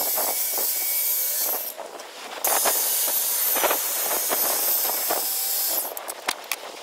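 Handheld circular saw ripping a length of timber lengthwise to narrow it, a loud high hiss of blade through wood. The cut breaks off about two seconds in, starts again a moment later, and the saw stops near the end, followed by a few light knocks.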